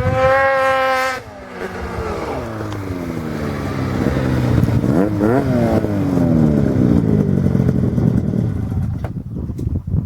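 Polaris IQ-R 800 two-stroke snowmobile engine through an HPS aftermarket silencer, held high in the revs for about a second, then dropping off. The revs climb again to a peak about five seconds in, fall away, and the sound fades near the end.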